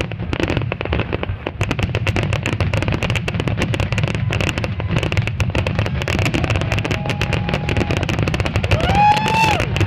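Fireworks finale: aerial shells burst in dense, rapid volleys almost without a gap, over a steady low rumble. A spectator whoops briefly near the end.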